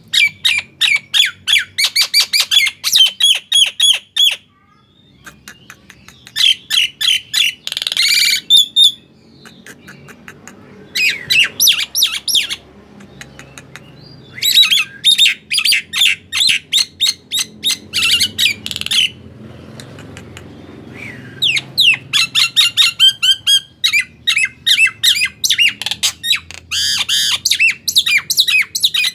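Nias hill myna calling in bouts of rapid, sharp, loud notes, several a second, each bout a few seconds long with short pauses between, and one longer held note partway through.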